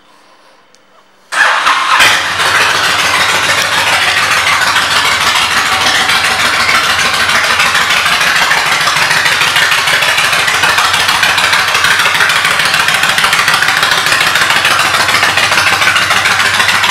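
A 2006 Honda VTX 1300C's V-twin engine, fitted with aftermarket exhaust pipes, starts suddenly about a second in and then idles steadily.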